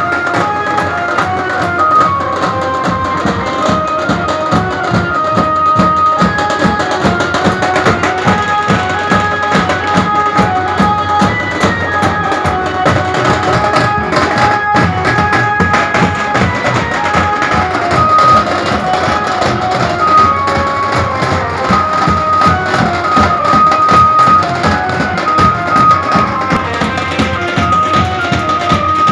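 Live drumming on strapped, double-headed drums beating a fast, steady rhythm, with a melody of held notes played over it.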